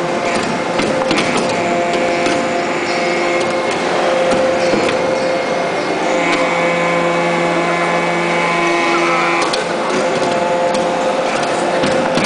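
Hydraulic metal-chip briquetting press running: a steady machine whine with several held tones and scattered clicks and knocks. A lower tone joins for about three seconds past the middle.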